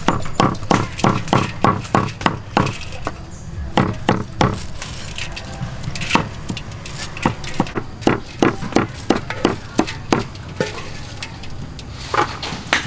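Knife chopping through bundles of rice vermicelli, a fast run of sharp chops at about three a second, thinning out midway and picking up again later.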